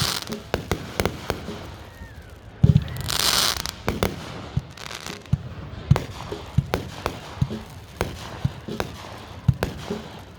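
Fireworks going off: a run of sharp, irregular bangs and pops, often several a second, with a louder hissing, crackling burst about three seconds in.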